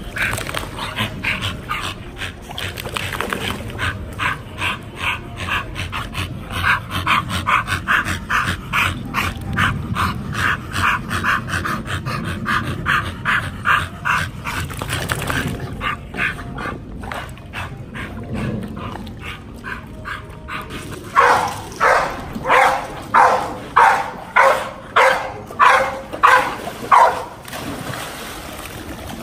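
Pit bull whining in quick repeated cries, then about ten barks in a row in the last third.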